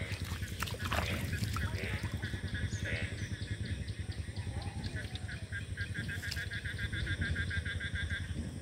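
An animal calling in a fast, even series of short pulses, about seven a second, through the second half, over a steady low rumble.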